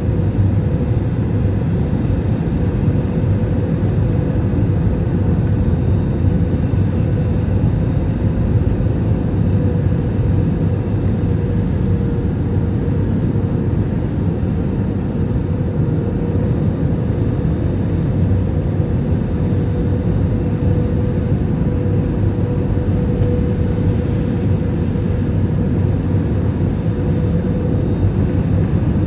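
Jet airliner cabin noise on final approach, heard from a window seat over the wing: a steady rumble of engines and airflow with a thin, even hum running through it.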